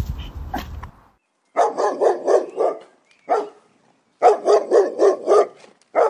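A dog barking in two quick runs of about five barks each, roughly four a second, with a single bark between them.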